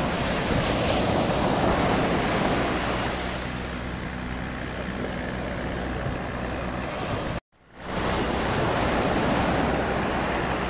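Small surf waves breaking and washing up the sand around a grounded yacht's hull, with wind buffeting the microphone. A faint steady engine hum runs underneath in the second half, and the sound cuts out suddenly for about half a second partway through before fading back in.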